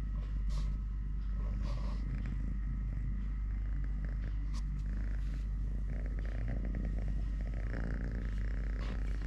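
Kitten purring steadily in a low, pulsing rumble, with a few faint clicks.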